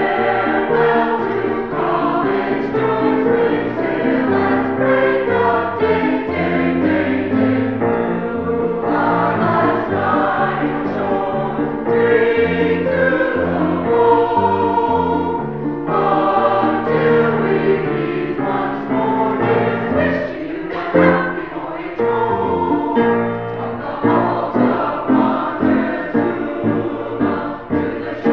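A choir singing a piece of music, several voices in harmony at a steady level.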